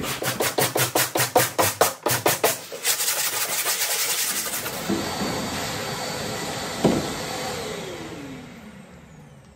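Wire brush scrubbed in quick, rhythmic strokes over the chair's shell to clear old foam residue, followed by a vacuum cleaner's steady hiss. Near the end the vacuum clicks off and its motor winds down in a falling whine.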